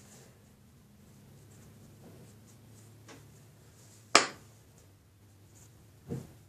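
Soft brushing and rubbing as a small brush and fingers work baby powder onto a small silicone toy bunny, over a faint steady low hum. A sharp click sounds about four seconds in, and a shorter knock near the end.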